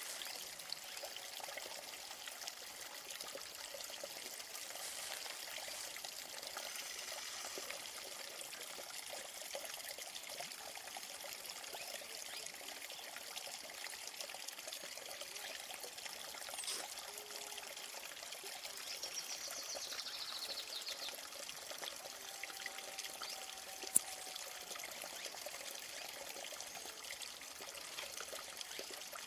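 Small stream of water trickling and pouring steadily. A single sharp click stands out late on.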